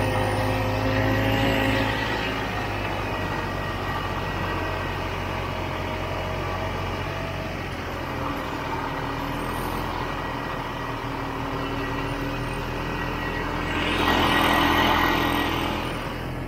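Vintage Ski-Doo snowmobile's two-stroke engine running under way at low speed, its pitch drifting slightly up and down, with a louder burst of noise about fourteen seconds in.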